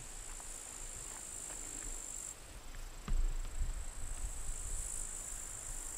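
Insects chirring: a steady high-pitched buzz that weakens after about two seconds and swells again near the end, over a low rumble, with a thump about three seconds in.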